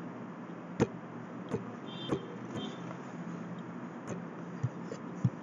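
Computer mouse clicking about seven times at irregular intervals, the loudest about a second in, over a steady low hum of background room or computer noise.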